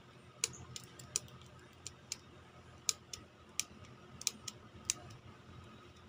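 A Shimano Altus left bicycle shifter's mechanism clicking as it is worked by hand during repair: about eleven sharp, small clicks at irregular intervals.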